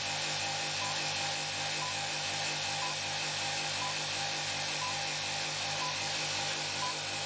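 Motor-driven steel-disk 'N machine' generator running steadily under a resistor load, with a regular low pulsing and a short high blip about once a second.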